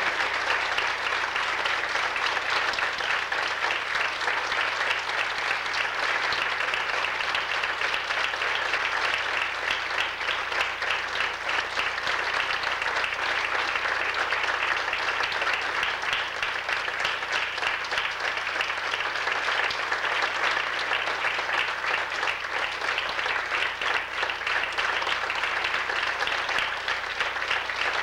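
Audience applauding: many hands clapping at once in a long, even round of applause.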